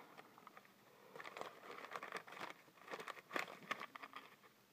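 Faint crinkling and rustling of packing wrap being handled and pulled open, a string of soft, irregular crackles.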